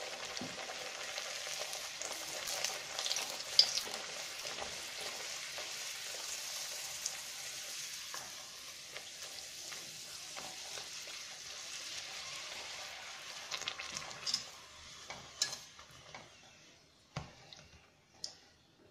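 A sattu-stuffed puri deep-frying in hot oil in a kadhai, a steady sizzle, with a few light clicks of the wire-mesh skimmer against the pan. The sizzle thins out near the end as the puri is lifted out of the oil.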